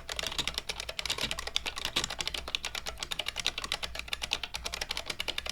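IBM Model M buckling-spring keyboard being typed on at a fast, steady pace, a rapid stream of key clicks, after the switches have been spray-lubed.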